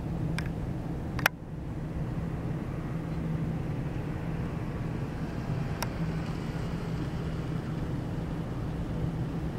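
Steady low mechanical hum, like distant engines running, broken by a few sharp clicks: a loud one about a second in, followed by a brief drop in level, and another near six seconds.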